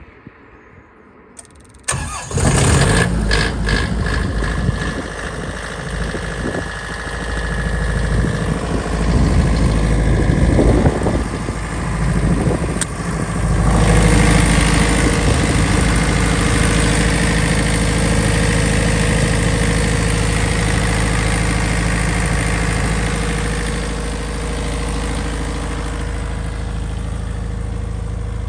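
Himoinsa HYW-20 kVA generator's Yanmar diesel engine starting about two seconds in, then running steadily. About halfway through, the sound turns louder and brighter as a canopy side door is swung open, exposing the engine.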